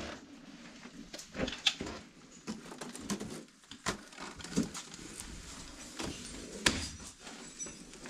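Scattered knocks, clicks and scrapes of abseiling gear being handled as a canyoner gets on rope, over a low background hiss. The sharpest click comes about two thirds of the way through.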